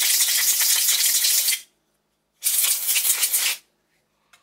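Compressed-air blowgun blowing quick cleaner and grit off a chainsaw crankshaft in two loud hissing blasts, the first cutting off about one and a half seconds in and the second lasting about a second.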